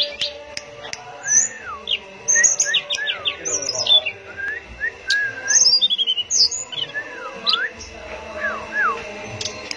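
A caged blue flycatcher (tledekan) singing: a varied string of clear whistled notes slurring up and down, mixed with short, quick runs of high notes.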